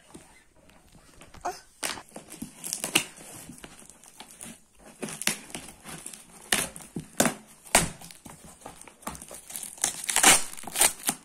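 Box-cutter knife slicing through a plastic cement-sack wrapping on a parcel, with crinkling and tearing of the plastic: a run of irregular rasps and crackles, the loudest about a second before the end.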